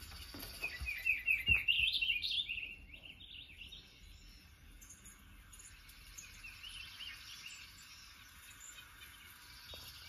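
Songbird song played through a television's speakers: a loud, fast run of warbled chirps in the first couple of seconds, then fainter chirping, with a low thump about a second and a half in.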